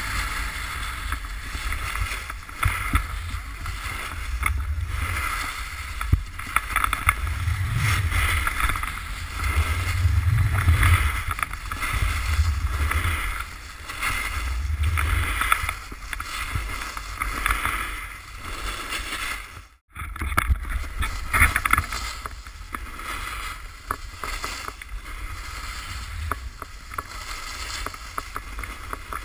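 Snowboard sliding and carving over groomed snow, with wind rushing over the microphone of a pole-held action camera; the low rumble swells and fades with each turn. The sound drops out abruptly for a moment about twenty seconds in.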